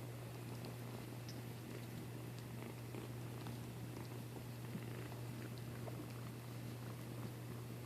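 Kitten purring steadily, with faint scattered small clicks.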